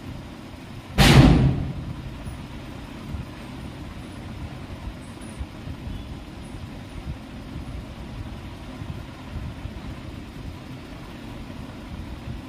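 One sharp, loud bang about a second in, fading out over about half a second, over a steady low rumbling background.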